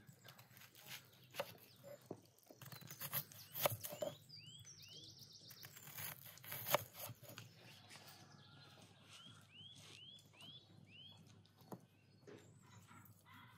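Kitchen knife slicing through a red onion and knocking on a wooden cutting board, a string of sharp cuts through the first half. Small birds chirp short calls, two about four seconds in and a quick run of about five later on.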